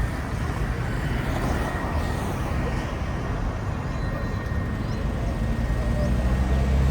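A vehicle's engine runs while under way, with steady road and wind rush over it. The engine note grows louder near the end.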